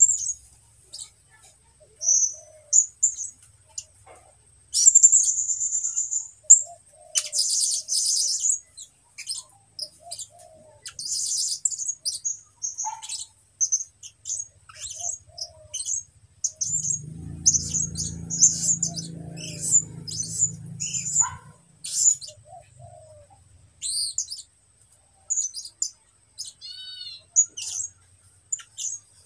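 A year-old caged songbird singing in short, broken snatches: many brief high chirps and twittering phrases with pauses between, a young bird still learning its song. A low rumble rises and fades about two-thirds of the way through.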